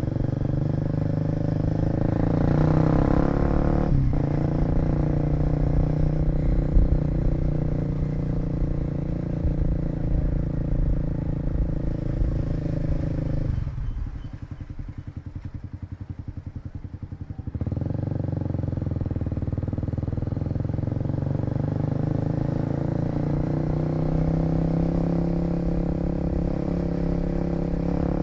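Kawasaki KLX250 single-cylinder four-stroke engine running under way. About 14 seconds in it drops to idle for roughly four seconds, then pulls away again.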